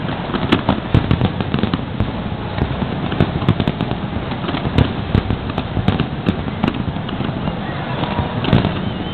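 Big aerial fireworks display: shells bursting and crackling in a dense, near-continuous barrage, many bangs overlapping with no pause.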